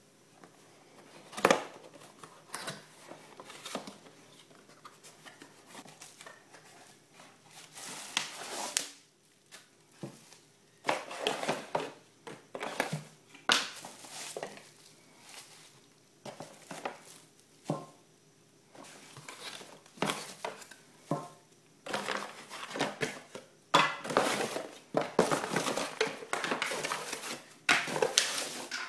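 Unboxing by hand: cardboard flaps and bubble wrap rustling and crinkling, with knocks and light clinks as wrapped glass jars shift in the box. The handling grows denser and louder near the end.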